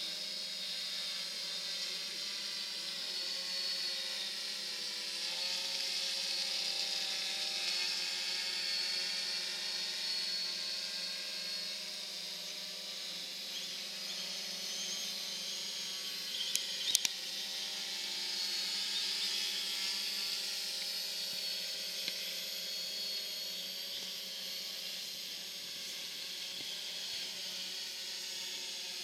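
Multirotor drone's electric motors and propellers whining as it hovers and manoeuvres close by, the pitch shifting slightly as the motors change speed. A brief cluster of sharp clicks sounds about seventeen seconds in.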